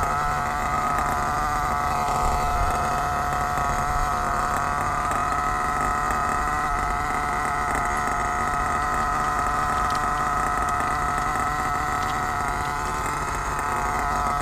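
HPI Savage X 4.6 nitro truck's 4.6 cc two-stroke glow engine idling steadily with a buzzing note, run at idle during its first break-in tank.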